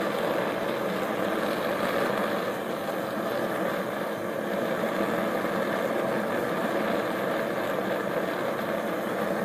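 Homemade 3/4-inch pipe propane burner firing into a small coffee-can forge, burning with a steady, even rush of flame.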